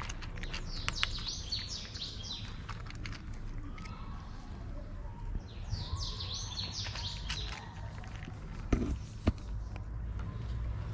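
Small birds chirping in two runs of quick, falling high notes, the first about a second in and the second around six seconds, over cats crunching dry kibble in short clicks. Two sharp, louder clicks come near nine seconds.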